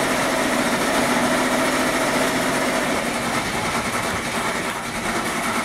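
Sewing machines running steadily together: a constant, even whirring hum that does not change in pitch or level.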